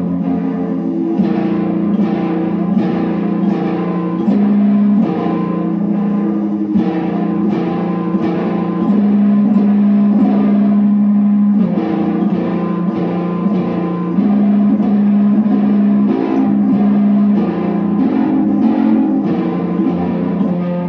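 Electrified kalimba (thumb piano) with a pickup, played through effects pedals into guitar amplifiers: a repeating pattern of plucked tine notes, about two a second, over long ringing low notes.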